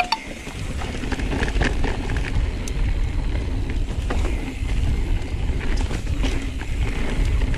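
Mountain bike riding down a dirt trail: a steady wind rumble on the microphone over tyre noise on dirt, with scattered clicks and rattles from the bike.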